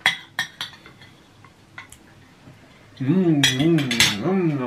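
Metal cutlery clinks sharply against a ceramic bowl several times, then a man hums an appreciative 'mmm' of enjoyment while eating, his pitch rising and falling in waves over the last second and a half.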